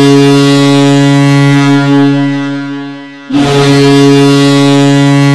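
Ice hockey arena goal horn sounding two long, low blasts: the first fades out about three seconds in and the second starts a moment later.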